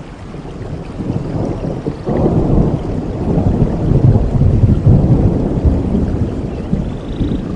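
A rolling rumble of thunder over steady rain, swelling about two seconds in and easing off near the end.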